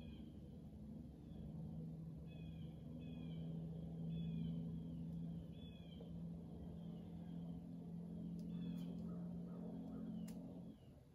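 Woodland ambience: a steady low drone that cuts off abruptly near the end, with a bird giving repeated short, falling calls over it.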